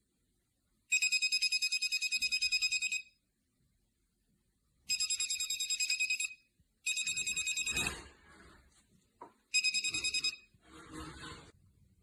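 Electronic alert beeping from the KAIWEETS voltage and cable tester: a high, rapidly pulsing beep in four bursts, the alarm it gives on detecting a live wire. Light handling noise comes between the last bursts.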